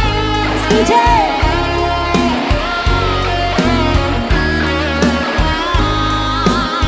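Background music: an instrumental passage of a song, a lead guitar playing bending notes over bass and a steady drum beat.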